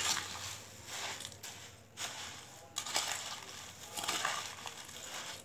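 Dry puffed rice rustling and crackling as it is stirred with a steel spoon in a steel bowl, in strokes about once a second.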